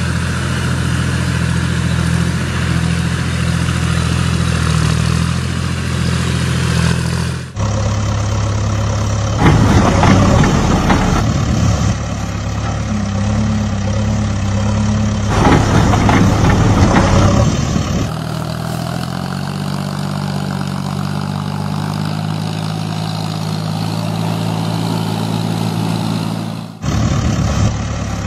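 Diesel engine sound idling steadily, its pitch and tone changing abruptly three times. Twice, about ten and sixteen seconds in, it turns louder and rougher for a second or two.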